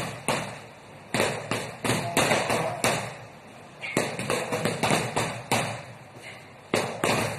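Foam pool noodles smacking against boxing gloves: sharp taps in quick runs of three to six, about three a second, with short pauses between runs.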